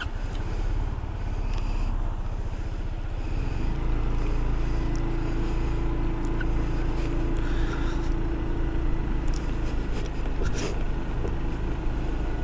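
SYM Cruisym 250i scooter's single-cylinder engine running under way, with a steady low drone that gets louder about three to four seconds in as it picks up.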